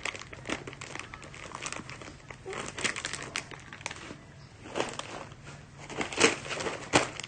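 Plastic snack packet crinkling, with irregular crackles and a few louder rustles near the end.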